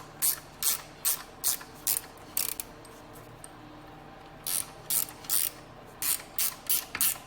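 Ratcheting 13 mm wrench being worked back and forth, its pawl clicking in short bursts about two or three times a second, with a pause of about two seconds midway. It is running an alternator mounting bolt in, which is stiff but not binding.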